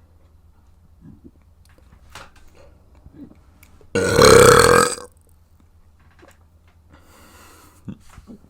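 A person burping once, loudly, for about a second, about four seconds in. Faint mouth clicks come before and after it.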